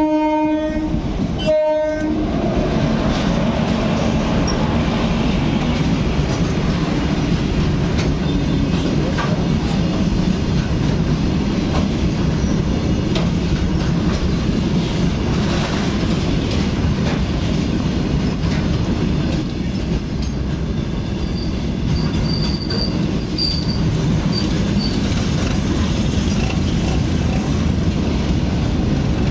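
WAG7 electric locomotive's horn sounding, cutting off about a second in and giving a second short blast, then a long line of loaded freight wagons rolling past: a steady rumble and clatter of wheels over the rails, with a few faint high wheel squeals later on.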